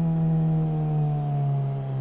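Suzuki GSR600's inline-four engine through a GPR Ghost exhaust, its note held steady while the revs fall slowly and evenly.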